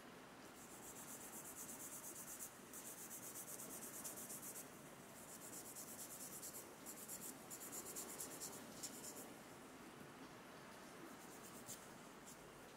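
Faint scratching of a nail file against a plastic press-on nail tip being filed into shape, in runs of quick back-and-forth strokes of about two seconds each with short pauses, thinning to a few single strokes after about nine seconds.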